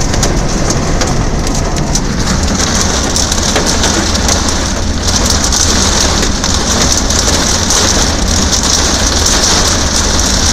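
Hailstones pelting a car's roof and windshield, heard from inside the car: a dense, continuous clatter of ice hitting metal and glass, growing sharper and heavier about halfway through.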